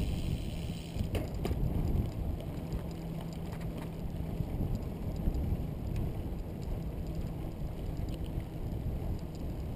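Wind rushing over the microphone and tyre noise from a Catrike recumbent trike rolling along asphalt, with a few light clicks about a second in.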